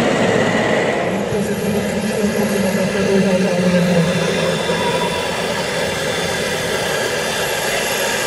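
Radio-controlled construction models running: a steady mechanical whir of small motors and gearing. A lower hum under it fades about halfway through.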